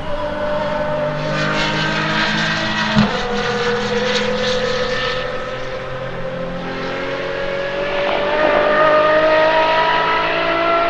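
Apollo IE's naturally aspirated V12 under hard acceleration on track. There is a sharp crack about three seconds in as the revs drop with an upshift, then the engine note climbs steadily and grows louder near the end.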